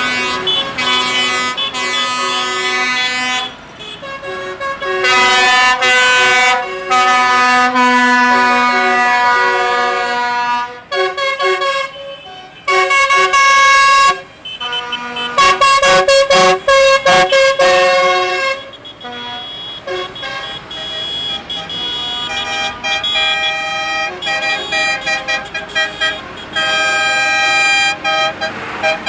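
Vehicle horns sounding, several at once, in long blasts broken by runs of quick toots.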